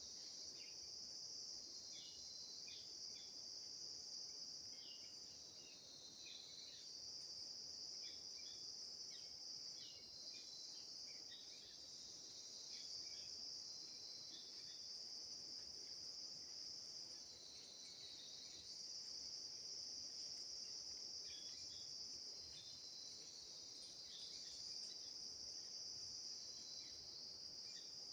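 Faint, steady high-pitched insect chorus, with many short chirps scattered through it.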